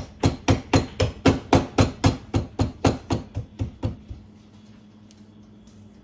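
Kitchen mallet pounding pieces of chocolate on a cutting board in a quick run of about sixteen blows, about four a second. The blows stop about four seconds in.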